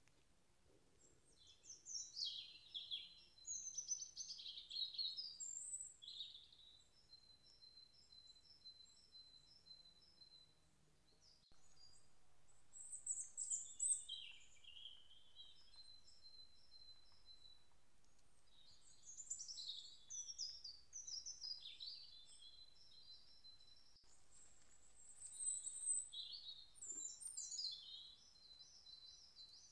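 Songbirds calling in bursts: falling whistled phrases and runs of quick, short repeated notes, fairly faint.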